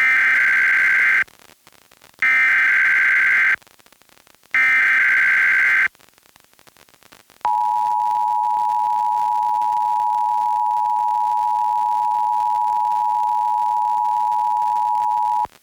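Emergency Alert System header heard over FM radio: three short bursts of high-pitched warbling SAME data tones about a second apart, each about a second long. They are followed by the steady two-tone EAS attention signal, which sounds for about eight seconds and cuts off sharply. This is the start of a Required Monthly Test.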